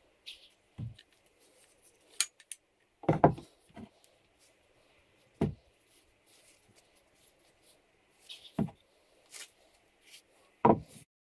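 Parts of a Woden M130 cast-iron workshop vice being handled and knocked against a wooden workbench: about six separate clunks and knocks, the loudest about three seconds in and another near the end.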